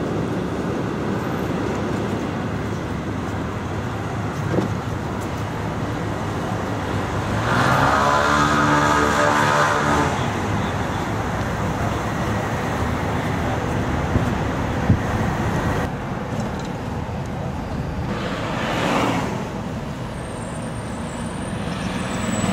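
Steady city road traffic. A louder engine hums past about eight seconds in, and another vehicle swishes by at around nineteen seconds.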